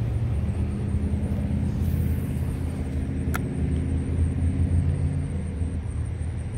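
Steady low engine rumble from a motor vehicle, with a few held low tones that fade out about five seconds in. A single sharp click sounds about three seconds in.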